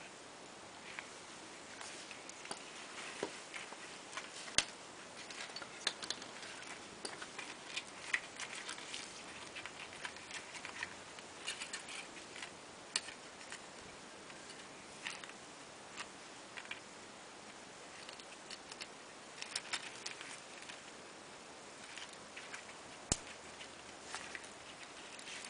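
Scattered light clicks and taps at an irregular pace, the small handling noises of hands working on an engine, over a faint steady hiss.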